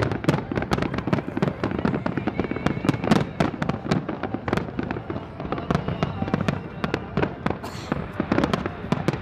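Fireworks display: a dense barrage of rapid bangs and crackling bursts, many per second.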